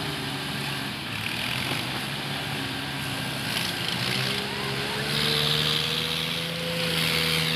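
Farmtrac 65 tractor's diesel engine labouring under a trolley heavily loaded with logs, running steadily, its pitch rising about four seconds in.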